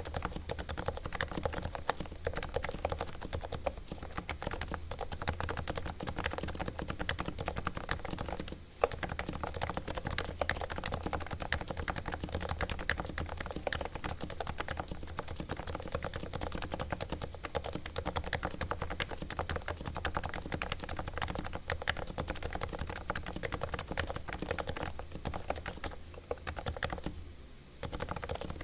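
Realforce R2 silent Topre keyboard with Edius keycaps being typed on quickly in a dense stream of keystrokes. Its sliders and springs are lubed with Krytox and its stabilisers are lubed and levelled. The typing breaks off briefly about nine seconds in, with one sharper key hit just after, and pauses again near the end.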